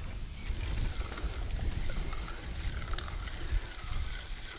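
Water trickling and lapping over a steady low rumble.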